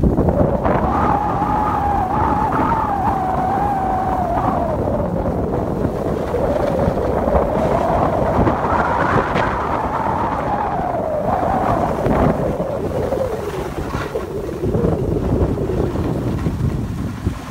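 Wind rushing over a phone microphone during a downhill ski run: a steady low rumble with a wavering whistle that rises and falls, over the hiss of skis sliding on snow.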